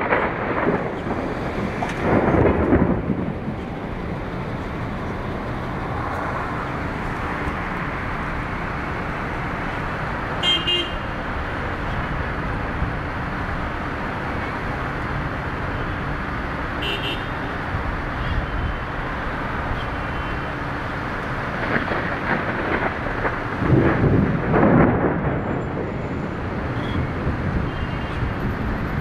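Road traffic: a steady roar of passing cars, swelling as vehicles go by close at the start and again a few seconds before the end, with two short car-horn toots near the middle.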